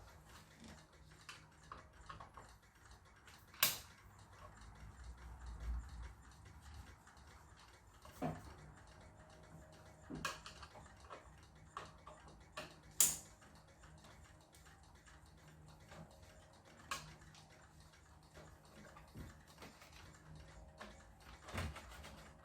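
Scattered small clicks and taps of tools and parts being handled while an LCD TV is taken apart, with two sharper clicks, about four seconds in and about thirteen seconds in.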